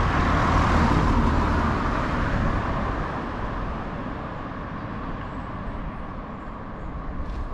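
Road traffic noise: a steady rush of passing vehicles that slowly fades over several seconds.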